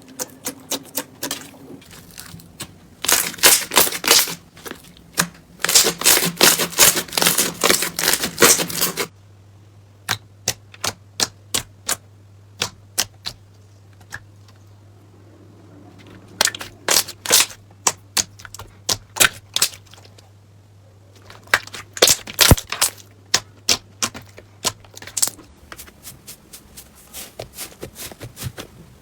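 Slime being pressed and squished, giving crisp clicks and crackling pops. Dense runs of crackling come early and again near the end, with slower single clicks in between.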